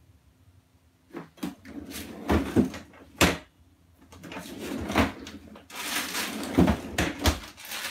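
Rummaging in a refrigerator's pull-out bottom freezer drawer, starting about a second in: a string of knocks and clunks from packages and the drawer, with a longer stretch of rustling and sliding near the end.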